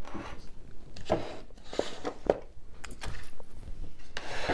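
Rustling and light clicks and knocks as small decoration items and their packaging are handled on a table.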